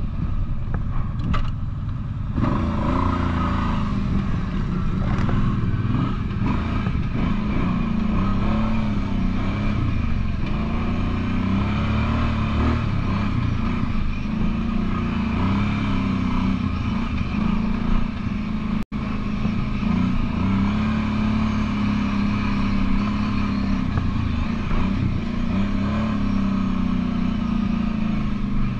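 ATV V-twin engine running hard, rising and falling in revs. The sound cuts out for an instant about two-thirds of the way through.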